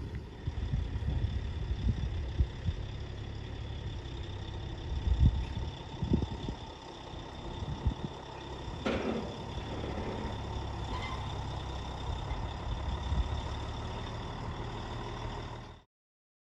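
A vehicle engine running steadily, with a single sharp knock about nine seconds in.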